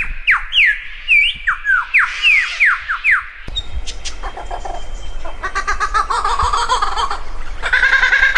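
Lyrebird calling: a quick series of loud, sharply slurred whistles, then about three and a half seconds in it switches abruptly to a fast, harsh chattering run of notes, typical of the lyrebird stringing together its repertoire of mimicked calls.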